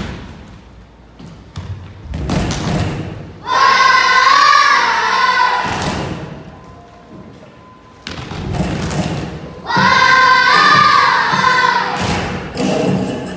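High young voices singing a song in two loud phrases, with a steady thumping beat and clapping in the gaps between them.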